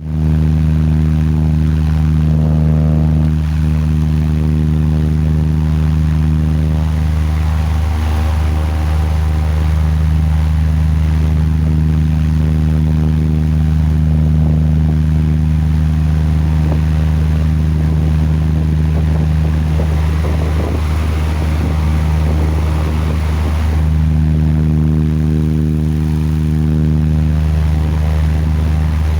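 Electric wall fan running with a steady, loud, low hum from its motor and blades; its tone shifts a little at times. The fan is faulty and no longer oscillates.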